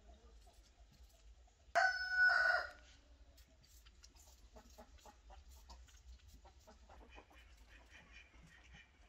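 Rooster crowing once, about two seconds in: a short, loud call that starts abruptly.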